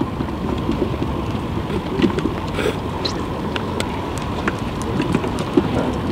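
Steady wind buffeting the microphone, with a low rumble, and scattered light clicks and taps over it.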